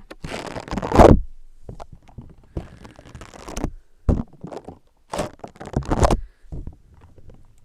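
Tough stress-relief putty being pressed and squished directly on a microphone, giving irregular thumps and crackly rubbing noise in bursts, with the loudest thump about a second in.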